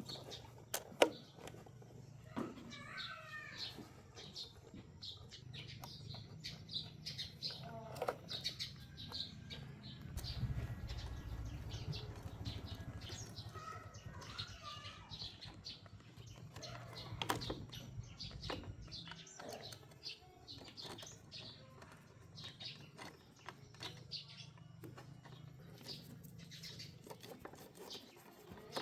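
Scattered light clicks and taps, like parts and tools being handled, over a low steady hum. A deeper rumble rises about a third of the way in and fades out about two-thirds of the way through.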